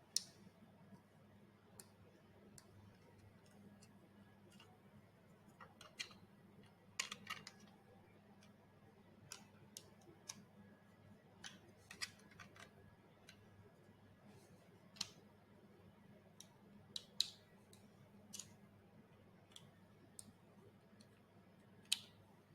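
Scattered light clicks and taps from handling small plastic robot-head parts and screws, a few of them sharper, over a faint steady low hum.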